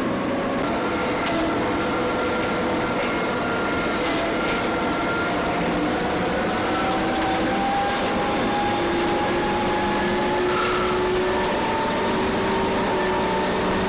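Steady engine and running noise, with a few faint tones slowly rising in pitch.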